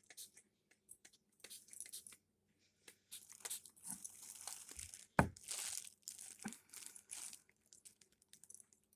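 Packaging rustling and crinkling in short, irregular bursts as products are handled, with one sharp knock about five seconds in.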